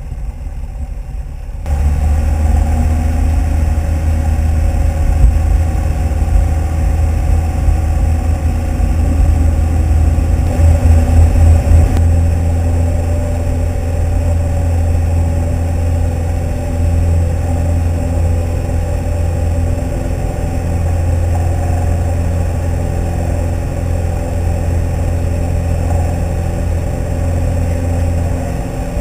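Light aircraft engine and propeller heard inside the cabin, rising sharply to full power about two seconds in for the takeoff roll, then a loud steady drone through liftoff and climb-out.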